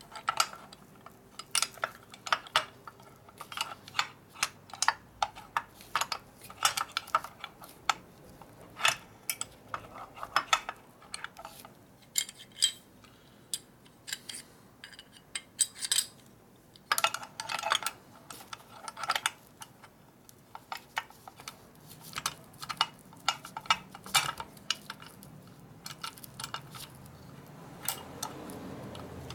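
Metal shift fork and shift rail clinking and tapping against the aluminium top cover of a Borg Warner T5 transmission as they are handled and fitted together, in many small, irregular clicks, some in quick clusters.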